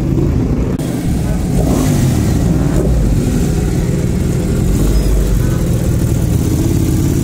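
Superbike engines running, with revs rising and falling, and people talking over them.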